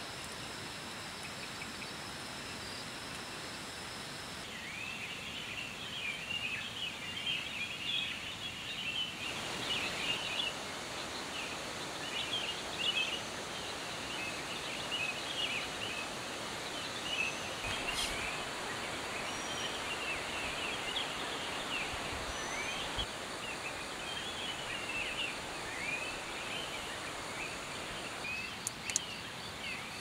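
Many birds chirping and twittering in short rising and falling calls over a steady background hiss, the calls starting about four seconds in and going on without a break.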